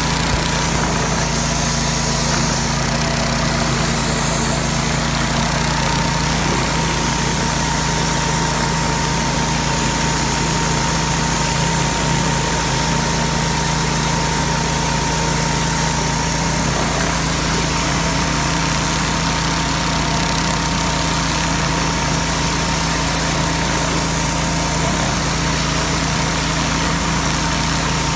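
Sewer jetter running steadily while its high-pressure water sprays from a C43rs penetrating turbo nozzle inside a clear pipe, a continuous engine drone under the hiss of the jet, with a steady high whine.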